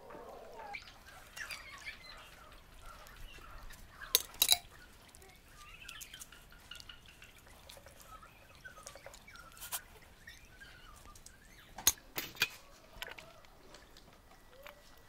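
Marinated chicken pieces squelching as they are pushed onto flat metal kebab skewers, with a few sharp metal clinks of the skewers, twice about four seconds in and a quick cluster near twelve seconds. Birds chirp faintly in the background.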